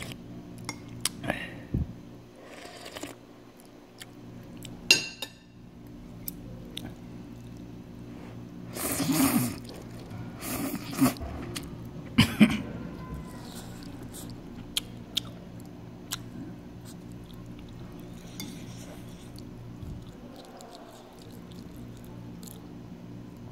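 A person eating instant ramen with potato slices from a ceramic bowl: metal chopsticks click against the bowl, with chewing and a few louder slurps in the middle.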